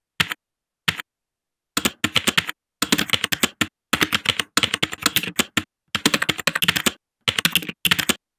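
Typing sound effect: rapid key clicks in runs of about a second each, separated by short pauses, after a few single clicks at the start.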